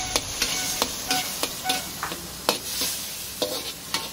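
Metal wok turner scraping and clanking against a hot wok during stir-frying, about a dozen irregular strikes, some with a short metallic ring, over a steady sizzle of food frying in oil.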